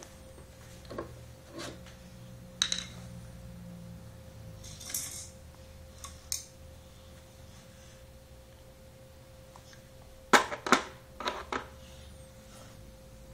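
Scattered clicks and clatters of screwdrivers and toy tools knocking against a tiled floor, a plastic toolbox and a small bike, with two sharp knocks, the loudest, a little after ten seconds in. A faint steady hum runs underneath.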